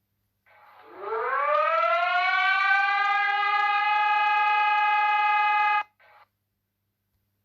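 Civil-defense-style siren tone of an emergency alert: it winds up in pitch over about two seconds, holds a steady loud tone, then cuts off abruptly, with a brief faint blip just after.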